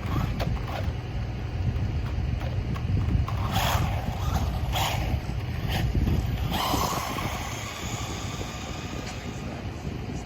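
Small 1/16-scale brushless RC jeep on a 2S LiPo, its motor and tyres sounding in four short throttle bursts in the middle, the last one longer. Wind rumbles on the microphone throughout.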